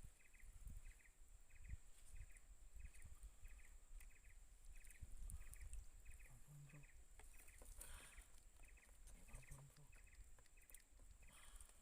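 Near silence with faint, regular chirping from a small animal, a short double chirp about twice a second, over a thin steady high hum.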